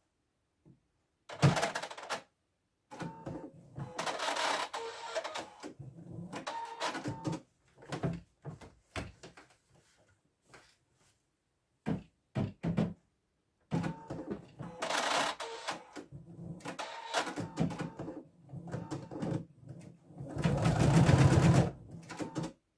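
Computerised embroidery machine (Husqvarna Viking Designer Diamond) stitching in several short runs, stopping and starting again, with near-silent pauses between the runs.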